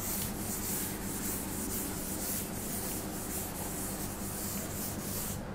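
A chalkboard eraser rubbing back and forth across a chalkboard, wiping off chalk writing: a steady rubbing noise that cuts off abruptly at the very end.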